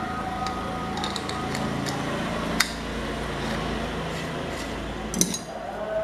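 Metal clicks and clinks as an electric fan motor's stator housing and rotor are handled, with one sharp click about two and a half seconds in and a few quick clicks near the end.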